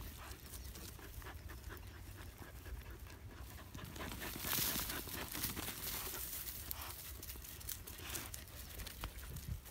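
Dogs panting and sniffing hard with their noses in a mouse burrow in dry clods of earth, with many short scratchy noises throughout. A louder, hissy stretch comes about halfway through.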